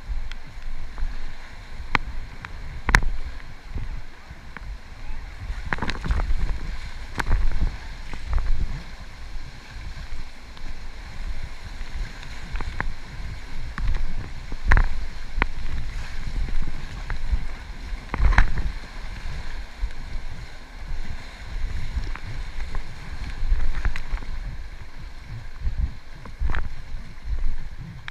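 River water sloshing around an Aire Tomcat Solo inflatable kayak under way, with wind rumbling on the microphone. Sharp knocks come every few seconds at uneven spacing.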